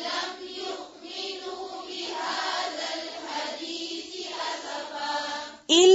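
A group of voices reciting a line of the Quran together in unison, in a chanted repetition after the teacher. A single clear voice starts again near the end.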